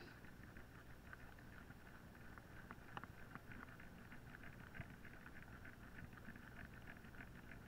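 Near silence: a faint patter of small ticks, like light water lapping against a small boat's hull, over a low steady rumble, with two slightly louder ticks about three and five seconds in.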